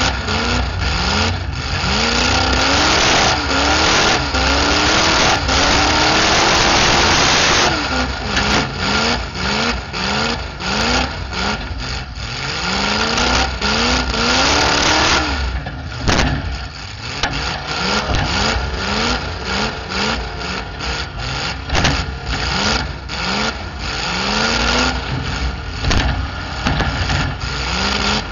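Demolition derby car engine revving hard through open header pipes, again and again in short rising surges. Sharp bangs of metal car bodies colliding come through it.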